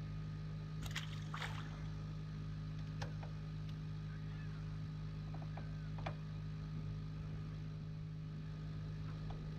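Steady low motor hum on a fishing boat, with a few light clicks of fishing tackle as a jig is handled and dropped: one about a second in, another half a second later, one around three seconds and one around six.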